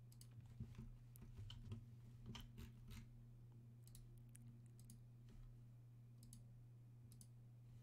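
Near silence with a steady low hum and a handful of faint, irregularly spaced computer mouse clicks.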